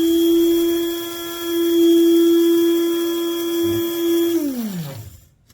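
KRUPS Fast Touch electric blade coffee grinder running on coffee beans, its motor giving a loud, steady hum. About four and a half seconds in it is released and winds down, the pitch falling away.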